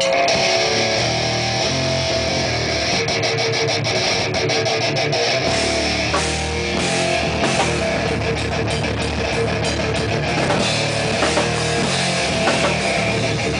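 Heavy metal band playing live in a small room: electric guitar over drums and cymbals, loud and continuous.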